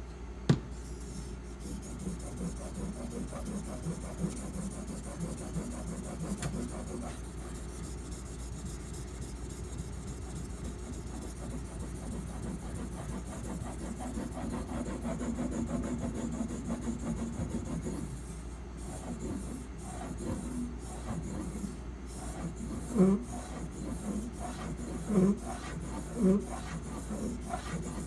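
A steak knife clamped in a sharpening guide being stroked back and forth on a whetstone: a steady scraping rasp of steel on stone. A few louder knocks come in the last five seconds.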